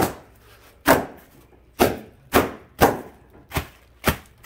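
Bubble wrap being popped underfoot: a series of about seven single sharp pops, roughly one every half second to second.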